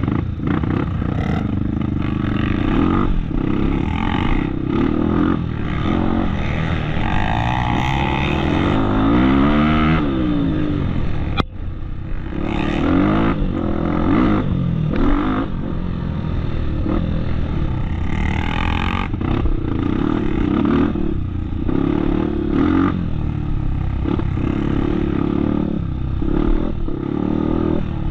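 Off-road motorcycle engine running hard, its revs rising and falling as the throttle is worked, with frequent knocks and rattles over the rough trail. The revs climb steeply about a third of the way in.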